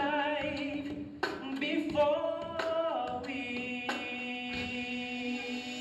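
Men's voices singing unaccompanied into microphones: a melodic line that ends in one long held note through the second half, with a few sharp clicks between phrases.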